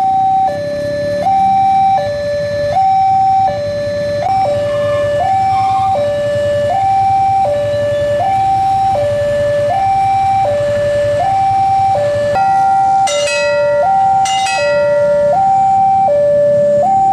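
Electronic level-crossing warning alarm sounding a continuous two-tone pattern, alternating high and low with each tone held under a second, signalling that a train is approaching and the barrier is down. A second steady tone and two short sharp sounds about a second apart join it about two-thirds of the way through.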